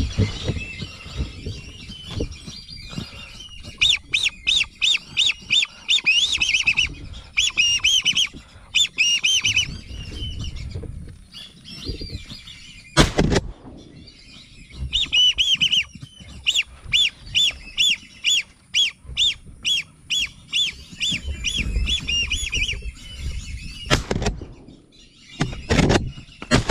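A flock of whistling ducks calling, in bouts of short, high whistled notes repeated about three times a second. A single loud sudden bang about halfway through, and two weaker knocks near the end.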